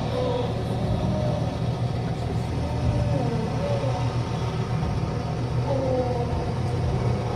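Steady low rumble with faint, distant voices rising and falling over it.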